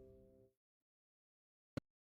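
Acoustic guitar music fading out in the first half second, then dead silence broken by a single short click near the end.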